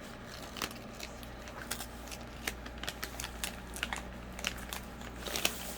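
Packaging being handled, with scattered crinkles and sharp little clicks, over a steady low hum.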